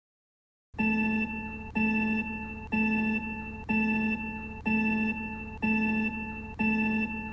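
A repeating electronic alarm tone: one pitched note struck about once a second, seven times, each starting sharply and fading before the next, after a moment of silence.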